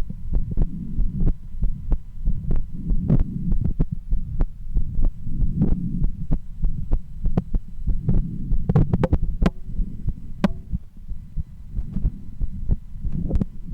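A woman's heartbeat heard through a stethoscope: low beats repeating steadily, with scattered sharp clicks.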